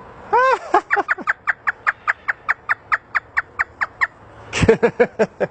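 An African grey parrot imitating a hysterical laugh. It gives a few falling whoops, then a rapid, even run of short 'ha' notes, about six a second, that stops about four seconds in. A brief burst of further calls follows just before the end.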